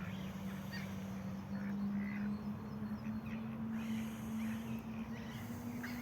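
Waterfowl at a pond, geese and ducks, giving scattered short calls over a steady low hum that slowly rises in pitch.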